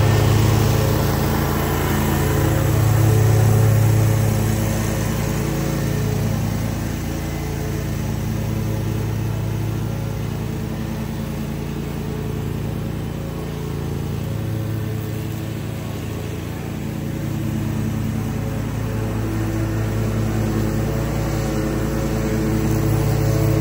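Zero-turn riding mower's engine running steadily under load as it mows, a little louder about three seconds in, easing off through the middle and rising again near the end as the mower's distance changes.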